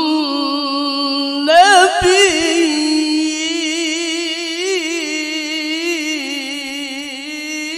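A male qari reciting the Quran in the melodic, maqam-style tilawah, holding one long, ornamented vowel into a microphone. About a second and a half in, the voice swells and climbs into a wavering turn, then settles back onto a sustained line.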